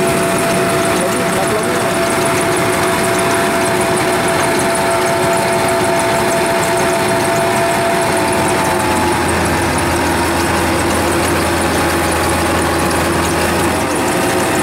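Kubota rice combine harvester's diesel engine running steadily under load as the machine crawls on its tracks through a boggy rice field. About nine seconds in, the engine note shifts and a deeper hum comes in.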